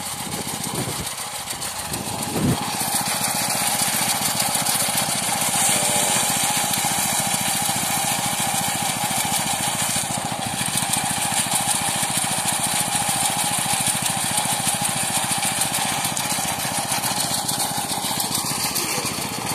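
Engine-driven rice threshing machine running steadily, a dense, rapid mechanical clatter with a steady whine through it, growing a little louder about three seconds in.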